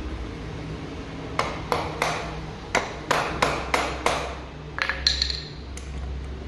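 About a dozen sharp metallic knocks with a short ring, irregularly spaced and bunched through the middle, over a steady low hum.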